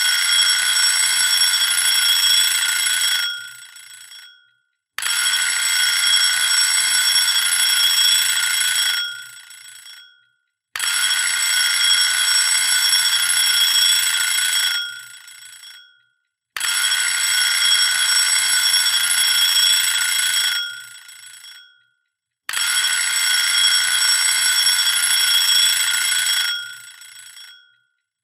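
Alarm clock bell ringing in five bursts of about four seconds each, with short silent gaps between them, each burst fading out at its end. It is a wake-up alarm marking the end of the power nap.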